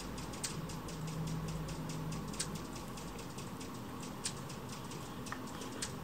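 Anna's hummingbird giving sharp single chip notes, four clear ones about two seconds apart, with fainter ticks in between, over a steady background hiss.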